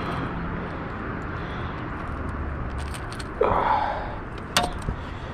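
Handling sounds of a fishing lure's treble hooks being worked free from a bass's mouth: a short scuffling noise about three and a half seconds in and a sharp click about a second later, over a steady low rumble.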